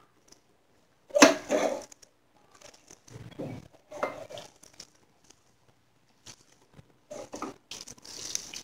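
A hand squeezing and kneading a coarse, damp mixture of chana dal, shredded cabbage and onion in a bowl: irregular crunching and crumpling rustles, the loudest about a second in.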